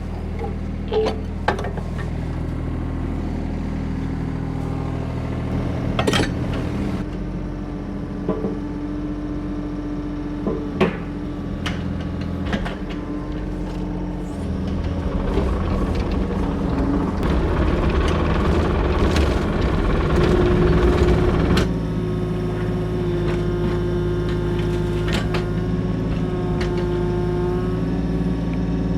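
A farm vehicle's engine running steadily, its pitch and loudness shifting a few times as the revs change, with occasional clicks and knocks over it.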